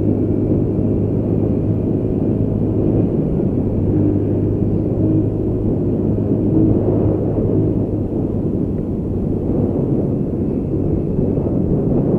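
Motorcycle riding at a steady pace: the engine hums steadily and low under a rumble of wind and road noise on the camera's microphone.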